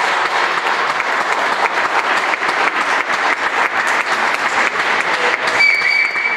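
Spectators applauding, a dense patter of many hands clapping. About five and a half seconds in, a steady high tone sets in over the clapping.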